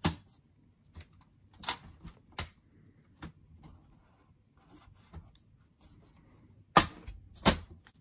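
Scattered sharp clicks and knocks as the sheet-metal drive bracket of a Dell OptiPlex ultra-small-form-factor desktop is pressed and seated into its chassis. The two loudest knocks come near the end, under a second apart.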